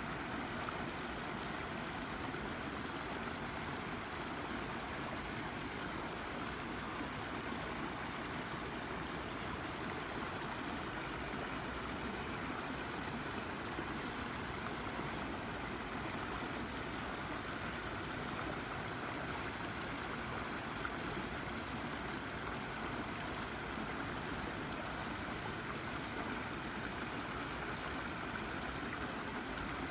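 Shallow brook babbling over and around a rock, a steady, even rush of water.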